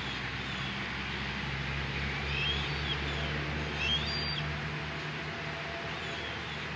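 Young red-tailed hawks calling: a few short, high calls gliding up and down in pitch between about two and four seconds in, over a steady low background hum.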